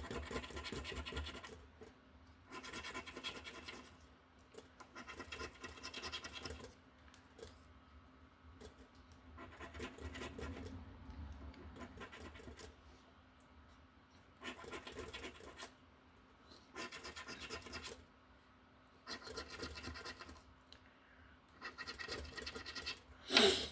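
Scratch-off lottery ticket being scratched off, in repeated short bouts of scratching with brief pauses between them.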